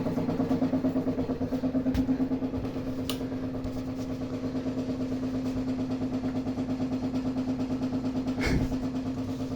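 Household water pipes humming while a gas tankless water heater runs: a steady, low, single-pitched drone with a fast, even pulsing flutter. A brief knock sounds near the end.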